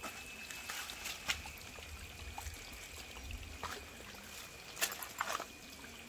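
Footsteps on a wet, muddy, rocky path, a scatter of short clicks and scuffs with a few louder steps near the end, over a faint steady trickle of water and a thin steady high tone.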